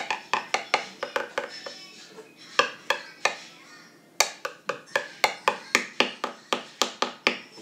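A pencil tapped over and over on a hard tabletop, about three sharp taps a second, in runs broken by two short pauses.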